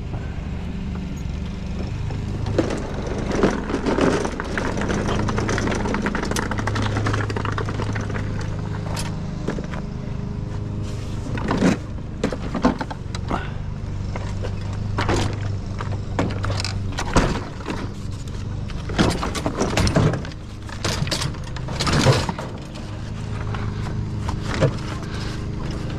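A vehicle engine running steadily. Over it come repeated metallic clanks, knocks and scrapes as scrap metal is loaded and wedged onto a piled trailer, most of them in the second half.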